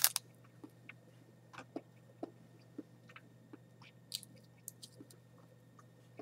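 Dried, salted giant water bug (Lethocerus indicus) being cracked open by hand: a sharp crunch of the shell right at the start, then scattered faint cracks and clicks as the brittle shell is picked apart.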